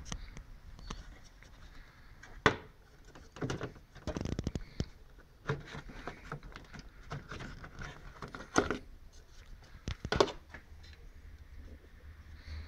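Hands working behind a BMW E46 headlight: scattered plastic clicks, knocks and rubbing as the headlight's rear cover is handled and taken off over the xenon bulb, with a few sharper knocks along the way.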